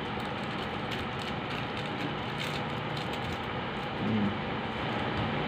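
Faint crinkling rustles of small plastic seasoning packets being shaken over a bowl of instant noodles, over a steady background hiss. A brief low hum of a man's voice about four seconds in.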